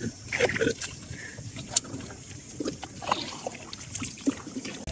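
Oar strokes in river water from a round coconut basket boat being paddled along: uneven splashing and swishing with scattered short knocks.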